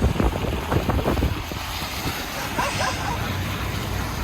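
A car driving on a snow-covered road: a steady low rumble of engine and tyres with wind noise on the microphone, and a few faint knocks in the first second.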